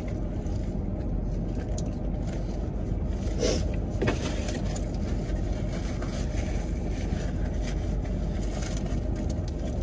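Steady low hum inside a car cabin, with a couple of faint clicks about three and a half and four seconds in.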